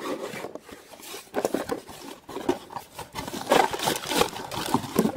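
A cardboard toy playset box being opened and its plastic contents unpacked: irregular rustling, scraping and clicking that gets busier after about a second.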